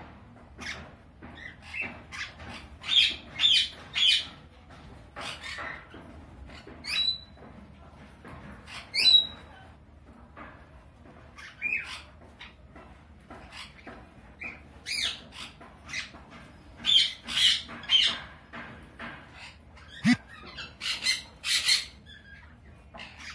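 Sun conures giving short, sharp squawks and chirps in quick runs of several during mating, with a couple of brief whistled glides.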